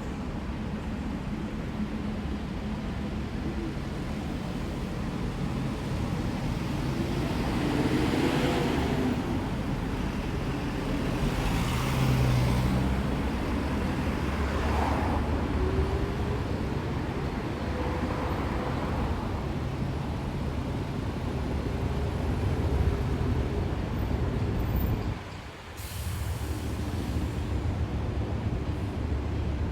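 City street traffic: a steady low engine rumble, with vehicles passing one after another and swelling louder about 8, 12 and 18 seconds in. Heavy vehicles such as buses or trucks are among them. A brief hiss about 25 seconds in is followed by a short drop in level.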